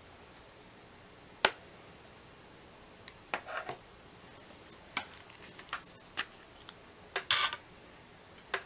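Scattered sharp clicks and light taps of small items being handled, with two short rustles. One louder click about one and a half seconds in.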